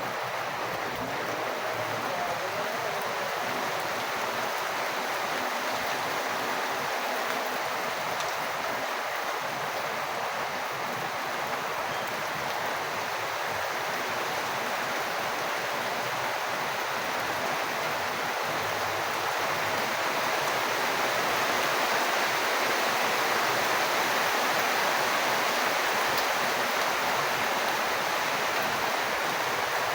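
Steady rain with water falling and running: a dense, even hiss that grows slightly louder about two-thirds of the way through.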